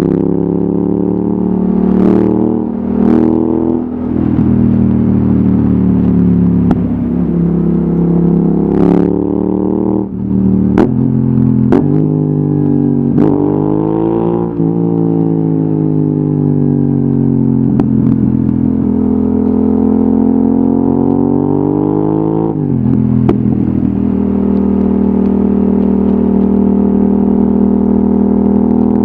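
Yamaha XSR700's parallel-twin engine with an Akrapovic exhaust, heard from the rider's seat in city traffic. The revs rise and fall several times through the middle as the bike accelerates and slows, then settle to a steady pitch near the end, with a few sharp clicks along the way.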